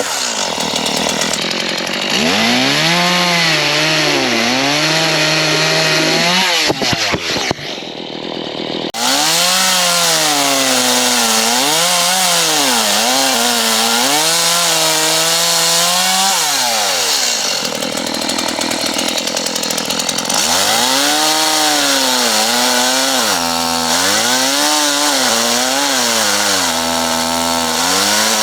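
Petrol chainsaw cutting wood, its engine pitch repeatedly sagging and rising again as the chain bites in and frees up, with a short dip in the running about seven to nine seconds in.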